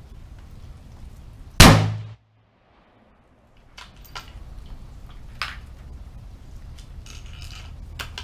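A single loud rifle shot from a 6mm PPC benchrest rifle about a second and a half in, with a short ring. Afterwards a series of small metallic clicks and clatter as the bolt is worked to eject the case and load the next round.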